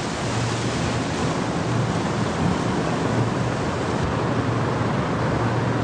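A steady, even hiss of noise with a faint low hum under it.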